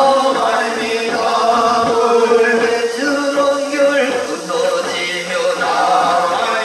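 Korean Buddhist yeombul chanting by monks: a steady, drawn-out sung chant with long held notes that shift in pitch every second or two.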